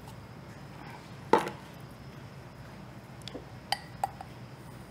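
Glassware and kitchen utensils being handled: one sharp knock with a short ring about a second in, then a few lighter clinks near the end.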